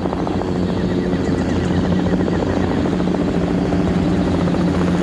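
Helicopter running steadily: a continuous low mechanical drone with rapid, even pulsing.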